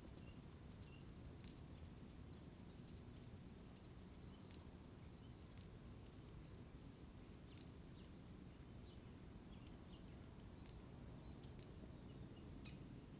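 Near silence outdoors, with faint scattered high-pitched chips and ticks from small birds at a mealworm feeder, over a low steady rumble.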